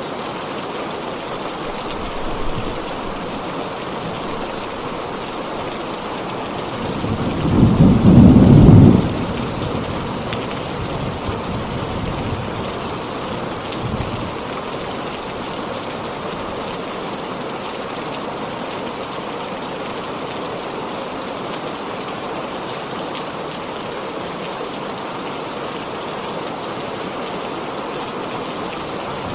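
Heavy rain falling steadily, with one loud, deep clap of thunder about a third of the way in and a few fainter rumbles after it.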